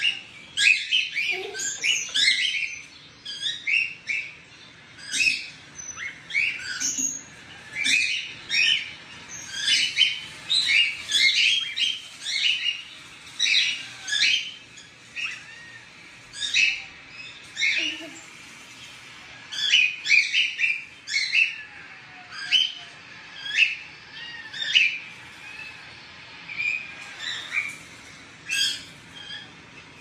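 Cockatiels chirping: short, sharp calls repeated in quick runs with brief pauses.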